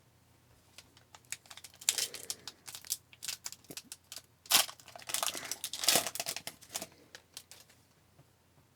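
Hockey card pack wrapper being torn open and crinkled: irregular crackling from about two seconds in until about seven seconds in, with the loudest rips near the middle.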